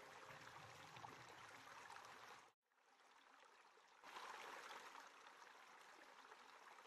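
Near silence: a faint hiss that drops out completely for about a second and a half partway through.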